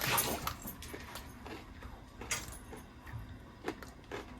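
Quiet, scattered crinkles and clicks from snack packaging being handled, with a louder rustle right at the start.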